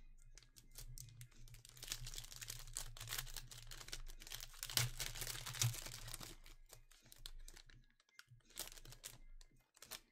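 Foil trading-card pack being torn open, its wrapper crinkling and crackling. One long spell of crinkling, then a shorter one about eight and a half seconds in.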